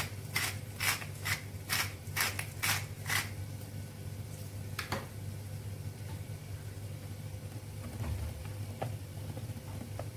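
Salt sprinkled over the pan in about ten quick, gritty shakes over the first three seconds, followed by soft scrapes and taps of a wooden spoon stirring ground beef and onions in a nonstick frying pan. A steady low hum runs underneath.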